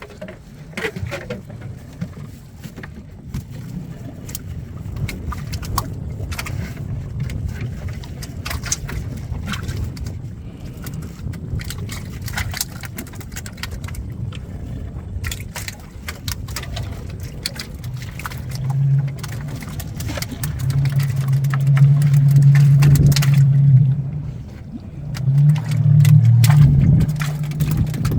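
A boat's engine running with a low rumble under many knocks and clatters; about two-thirds through, a louder steady hum comes in three bursts.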